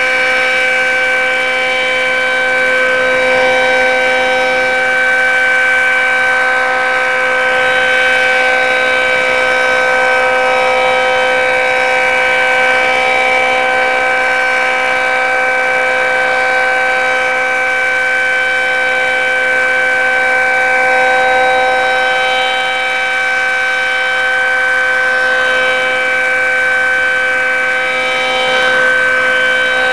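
Federal Signal 2T22A dual-tone siren sounding a steady alert, its two-note chord held at a constant pitch and swelling gently in loudness, heard from about a quarter mile away. Its lower intake is blocked, which gives the rotor a little more speed and an unusual tone.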